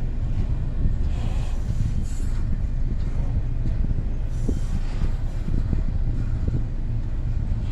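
Freight train cars rolling past with a steady low rumble and a few faint knocks.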